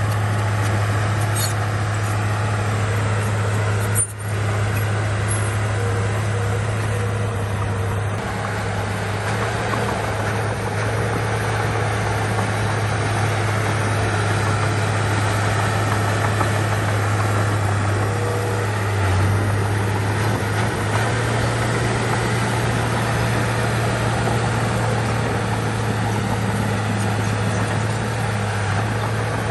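Heavy diesel earthmoving machinery, a bulldozer and dump trucks, running steadily under load with a constant low engine hum and mechanical clatter, with a brief break about four seconds in.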